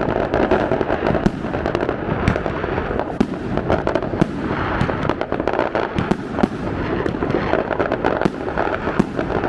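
Many fireworks and firecrackers going off across a city at once: a dense, unbroken crackle of overlapping bangs and pops.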